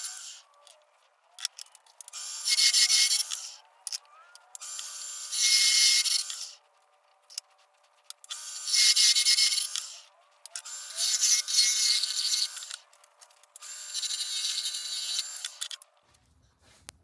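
Metal being cut or abraded by hand in repeated raspy passes, each about one and a half to two seconds long with short pauses between, five full passes in all.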